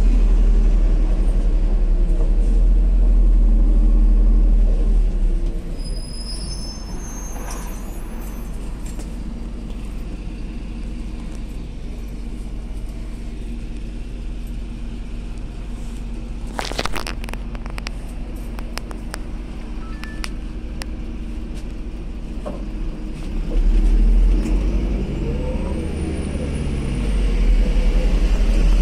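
Cabin noise of a MAZ-203 city bus: a steady low engine and drivetrain rumble that drops to a quieter, even run about five seconds in and grows louder again near the end as the bus picks up. A short run of sharp knocks or rattles comes about halfway through.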